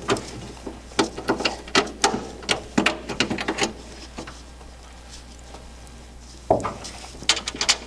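Metal hardware clicking and clinking as a bolt is fitted by hand into the cowl through the export brace, in quick irregular taps, with a duller knock about six and a half seconds in.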